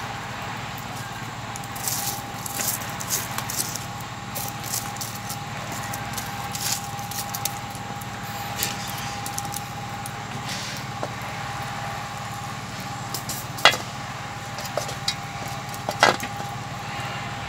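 Small wood fire crackling under cooking pots, with scattered short snaps. Near the end come two sharp metal knocks about two seconds apart, as a pot's metal lid is handled.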